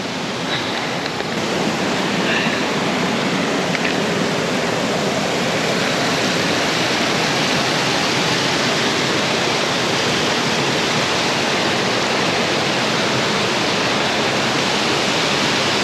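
Small waterfall close by, a steady rush of falling water that grows a little louder over the first couple of seconds and then holds.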